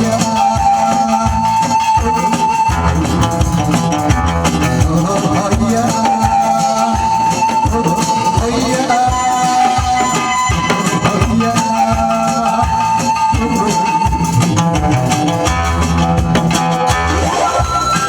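Music with a steady beat and long held melody notes.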